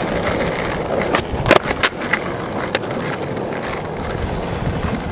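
Skateboard wheels rolling on asphalt with a steady grinding rumble. A handful of sharp clacks from the board come between about one and three seconds in.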